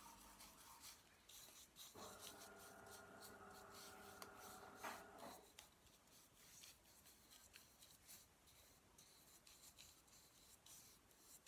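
Faint scratching and rubbing of a small paintbrush dabbing white paint onto a styrofoam ball, in many short strokes. From about two seconds in, a faint steady multi-tone hum sits underneath for a few seconds, then stops.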